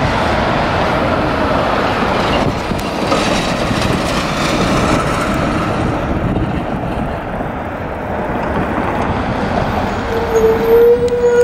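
Road traffic at a railroad grade crossing: a heavy dump truck and cars passing over the tracks, a steady rumble of engines and tyres. Near the end a single held tone about a second long sounds over it.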